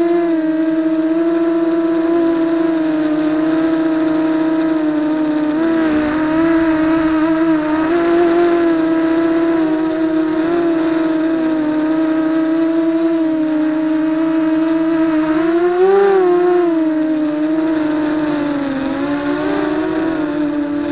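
ZMR250 racing quadcopter's four brushless motors and propellers, picked up by its onboard camera, running as a steady high whine. The pitch wavers slightly with throttle and rises briefly about three quarters of the way through.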